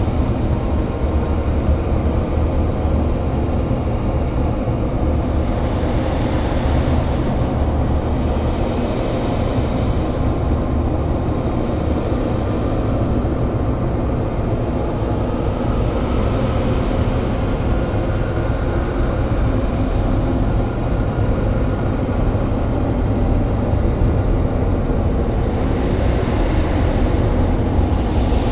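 Experimental noise-drone music: a dense, steady low rumbling drone, with hissing swells in the highs that rise and fade every few seconds.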